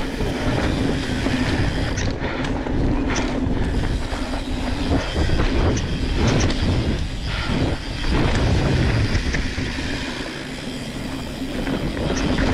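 Mountain bike rolling fast down a dirt singletrack: tyres rumbling over dirt and stones and the bike rattling over the bumps, over a steady low hum.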